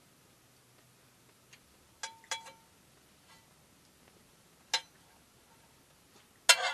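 Metal cutlery clinking and scraping against a frying pan while eating from it: a few sharp clinks about two seconds in and again near five seconds, then a louder, longer clatter near the end.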